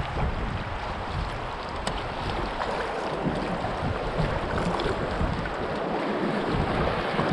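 Kayak paddle strokes in moving river water, with a steady wash of current and wind rumbling on the microphone.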